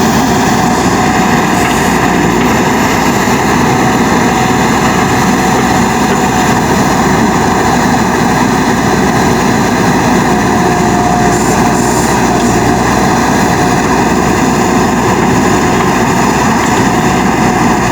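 A motor running steadily at an unchanging pitch, with no breaks.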